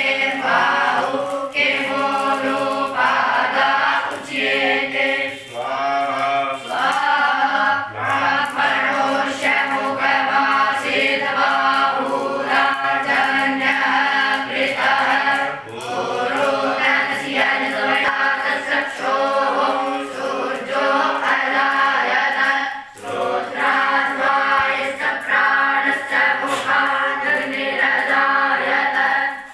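Young gurukul students reciting Vedic mantras of the havan in unison, a steady group chant with brief breaks between verses.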